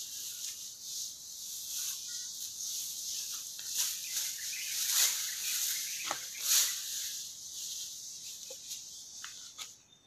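Dry cogon grass rustling and crackling as a bundle is picked up and handled, loudest in a few swells about four to seven seconds in, over a steady high hiss, with a few light clicks.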